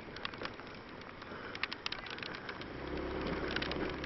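Large raindrops pattering irregularly onto the microphone and nearby surfaces, as scattered sharp ticks. A steady low engine hum starts up a little under three seconds in.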